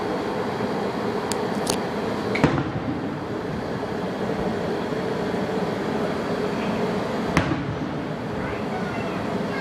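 Fireworks going off in the distance: two sharp bangs about five seconds apart, with a couple of fainter cracks before the first, over a steady background rumble and hiss.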